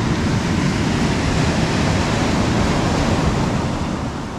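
Ocean surf on a sandy beach with wind buffeting the microphone, a steady rushing noise that begins to fade out near the end.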